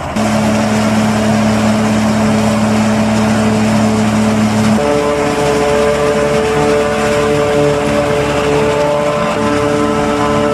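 A John Deere 6820 tractor's engine running steadily as it pulls a tipping trailer, one steady low engine note. About five seconds in it gives way to a John Deere 5400 forage harvester chopping corn, its engine and chopping gear making a steady higher hum, with a tractor engine running alongside.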